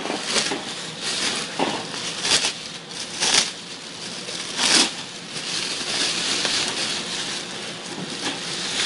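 Plastic sheeting being pulled off and crumpled, crinkling in irregular bursts with a few louder crackles in the middle, then a steadier rustle.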